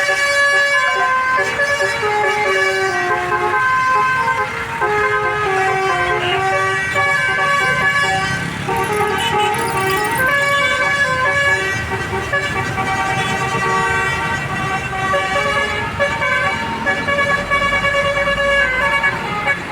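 A tour bus's multi-tone telolet air horn playing a melody, its notes stepping up and down in quick succession without a break.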